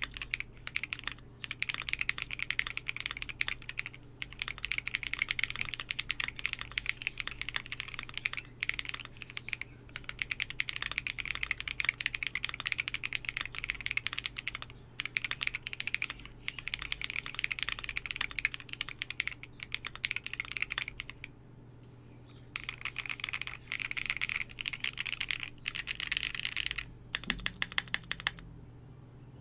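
Fast typing on a Keycult No. 2/65 custom mechanical keyboard with lubed Tecsee Zaku long-pole switches on a polycarbonate plate under PBT keycaps: a clacky sound with a loud bottom-out on each keystroke. It runs in quick bursts with a few short pauses and stops shortly before the end.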